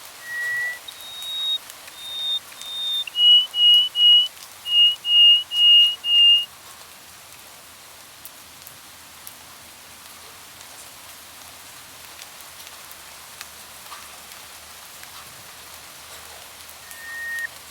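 A bird whistling a run of short, clear notes, each held at one pitch: one note, then three higher notes, then about seven slightly lower ones in quick succession, stopping about six seconds in. After that there is only a soft steady rain-like hiss with faint ticks, until the whistles start again just before the end.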